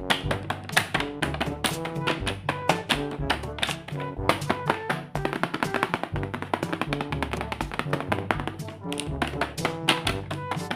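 Background pop music with a bass line and a fast, busy clicking percussion beat, no singing.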